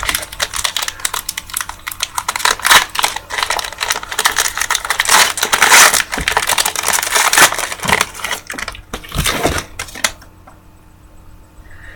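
Foil trading-card pack wrapper being pulled and torn open, crinkling and crackling with many sharp clicks, a stubborn wrapper that is hard to open; it stops about ten seconds in.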